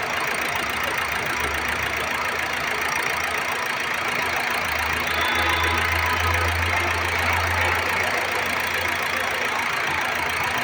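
Toyota Etios engine idling steadily with its AC compressor engaged. A low hum swells about a second and a half in and is strongest around the middle.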